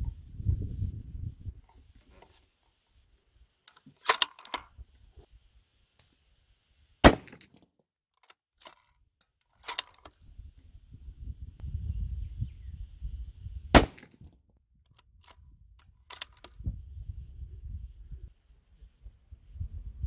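Howa Oryx bolt-action rifle in 6mm Creedmoor firing three single shots about six and a half seconds apart, the last right at the end, with fainter clicks between the shots.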